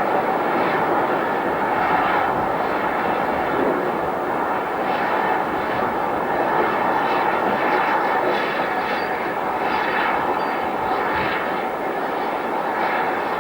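Great Western Manor class steam locomotive working, a steady roar of steam with exhaust beats coming roughly once a second.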